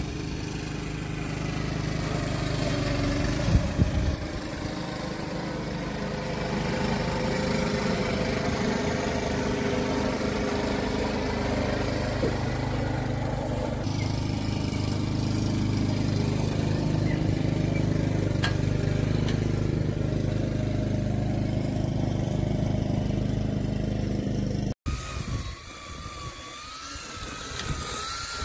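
Lawn mower engine running steadily while cutting grass, with a brief clatter about three and a half seconds in. It cuts off suddenly near the end, and a quieter wavering whine follows.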